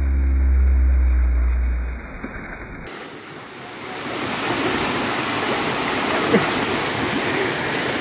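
Waterfall pouring into a rock plunge pool: a steady rush of splashing water that becomes fuller and louder from about three seconds in. A low droning hum fades out during the first two seconds.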